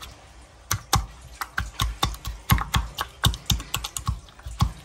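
Wooden pestle pounding strawberries in a bamboo mortar: a quick, irregular run of sharp wooden clacks, several a second, starting a little under a second in.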